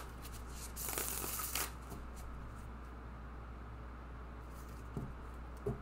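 A deck of tarot cards being riffle-shuffled on a table, with one brief rattling cascade of cards about a second in. A low steady hum follows, with two soft knocks near the end.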